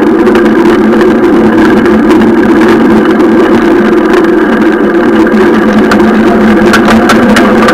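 Steady, loud rush of wind and tyre noise on the action camera's microphone as a mountain bike rolls along asphalt, with a few sharp clicks near the end.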